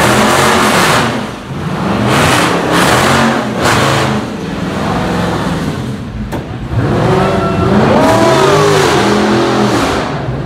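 Dodge Challenger doing a burnout: the engine revs up and down over and over while the rear tyres spin and hiss in a cloud of tyre smoke, with one sharp crack about six seconds in.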